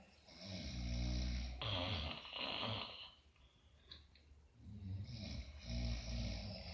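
A person snoring in sleep: two long, low, buzzing snores about four and a half seconds apart, with quiet breathing between them.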